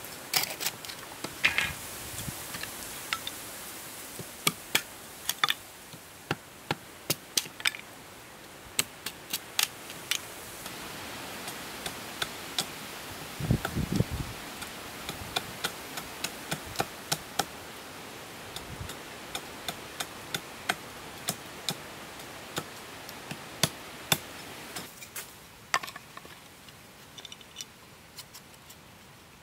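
Bamboo tubes being cut and chopped by hand with a saw and a machete: irregular sharp knocks and taps, with a few heavier thuds about halfway through.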